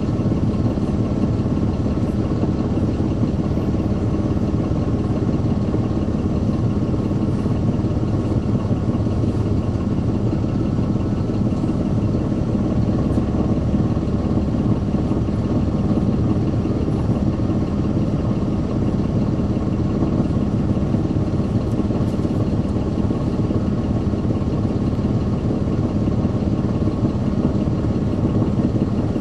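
Caterpillar C13 ACERT inline-six diesel engine of a NABI 416.15 transit bus running steadily at an even pitch, with no revving.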